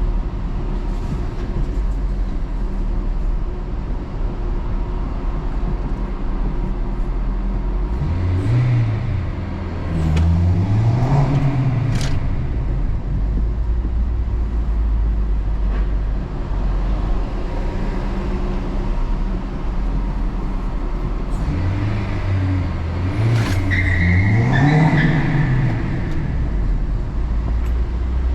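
Acura RSX driving, with steady engine and road noise; the engine revs up and drops back in two spells, about a third of the way in and again near the end. No abnormal rubbing or knocking: the weird noise is gone now that the loose lug nuts have been tightened.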